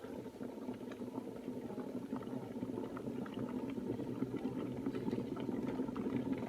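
Electric kettle near the boil: a steady rumbling, crackling bubbling that grows slowly louder as the water comes up to a full boil.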